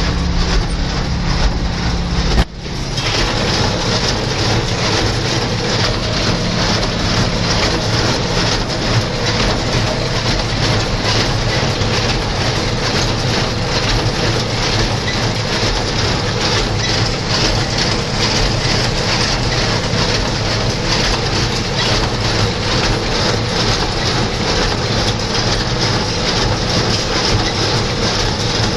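John Deere 2140 tractor running under load while the New Holland 268 square baler works behind it: a steady engine drone with a rhythmic mechanical clatter from the baler. A sharp knock sounds a couple of seconds in.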